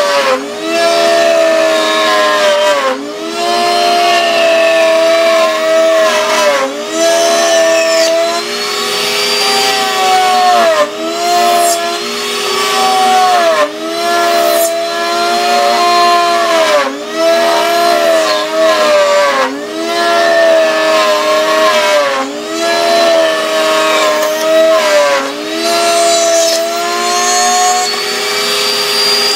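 Router in a router table running as a wooden gear is fed past the bit against a template, cutting the gear teeth. Its steady whine dips in pitch and recovers about every two to three seconds as the bit takes load in each cut.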